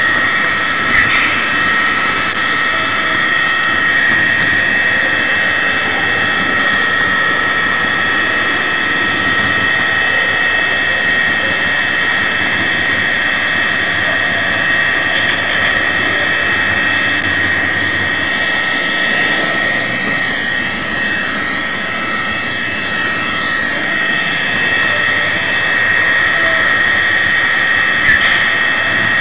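Mehano model Class 66 diesel locomotive running with its LokSound sound decoder on, heard from a camera car right in front of it: a steady whine over an even rolling noise from the train on the track. Two short sharp clicks, one about a second in and one near the end.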